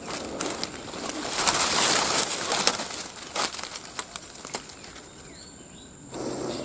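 Dense ferns and leafy undergrowth rustling and swishing as someone pushes through them. The rustling is loudest about a second and a half in, then dies down to scattered faint rustles and clicks.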